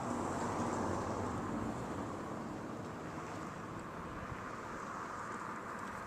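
A vehicle going by on the road, its rushing sound a little louder in the first second and then steady, with some wind on the microphone.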